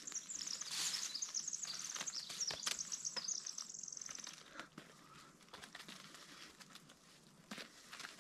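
A small songbird sings a long, rapid, high-pitched run of notes that lasts about four seconds, then stops. Scattered footsteps continue through the rest.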